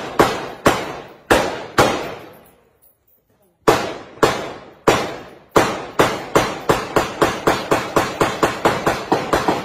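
Rifle gunfire, single shots in quick succession, each followed by a short echoing tail. The shots come about every half second, stop for about a second around three seconds in, then resume and quicken to about three a second.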